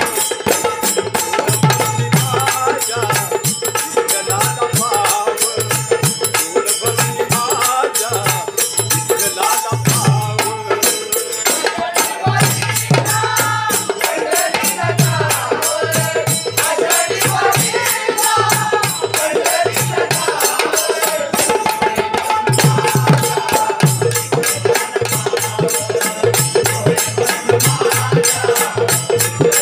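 Marathi devotional bhajan music: fast, even jingling percussion over a repeating low drum beat, with a steady held drone and a wandering melody.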